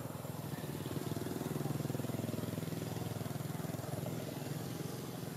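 A motor vehicle's engine passing by with a steady low drone, growing louder to a peak about two seconds in and then fading.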